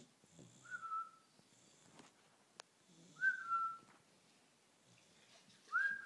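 Sleeping Bullmastiff puppy snoring, each breath about two and a half seconds apart and ending in a short, high whistle that drops slightly in pitch, three times.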